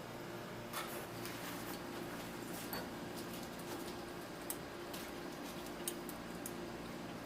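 Low steady hum with a few faint scattered clicks.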